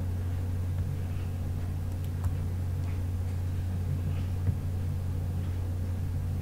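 Steady low hum, with a few faint clicks.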